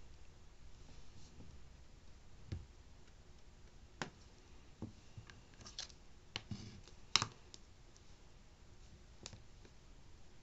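Scattered light clicks and taps, about seven in all, the sharpest a little past the middle, as a rectangular nail-art stamper is pressed onto and lifted from a metal nail-stamping plate.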